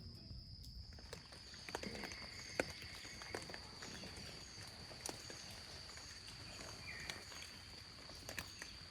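Faint countryside ambience: a steady high-pitched insect trill, with short chirps repeating a little under twice a second and a few soft clicks.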